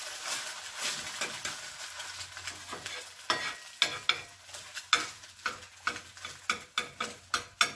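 An egg frying in a hot cast-iron skillet, sizzling steadily, while an old handmade metal spatula scrapes and taps against the pan. From about three seconds in, the spatula strokes come sharp and separate, two or three a second.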